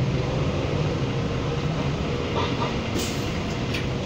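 City bus engine running with a steady low rumble as the bus sits at the stop and begins to pull away, with two short sharp sounds a little under a second apart about three seconds in.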